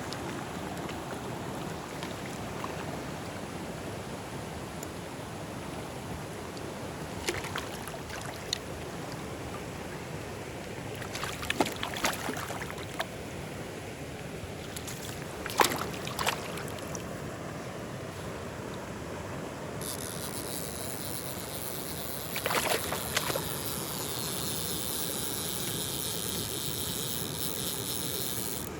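Mountain stream water rushing steadily, with a few short splashes or knocks scattered through. About two-thirds of the way in a higher hiss joins suddenly and runs on.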